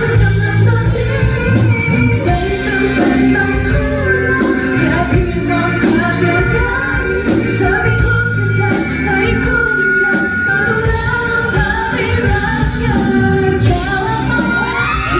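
Female singers performing a Thai pop song live over a full rock-pop band backing. Near the end, audience whoops and shouts come in over the music.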